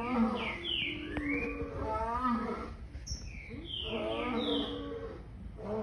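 A recorded lion's calls played from a computer: low grunting calls repeating about every two seconds. Short high chirps slide downward over them.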